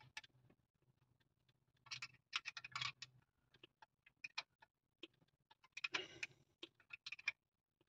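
Faint clicks and light metallic ticks from a spanner working the distributor clamp bolt on a Morris Minor 1098 engine, in two bunches, about two and six seconds in.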